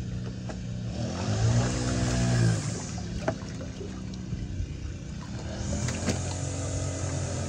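A motor engine running steadily, swelling and bending up and back down in pitch between about one and three seconds in, with a few sharp clicks over it.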